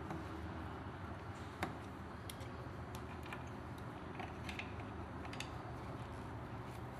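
Faint, scattered metallic clicks and ticks of a screwdriver turning out the screws on the gear head of a wet polisher, over a steady low hum.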